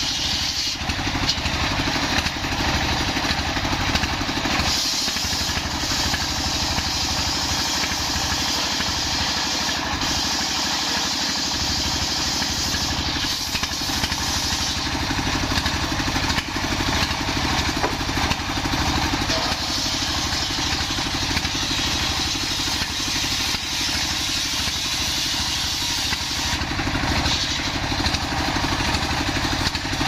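Stationary single-cylinder diesel engine running steadily, driving a large circular saw blade that rips through a young coconut-wood log, the saw's hiss layered over the engine's firing.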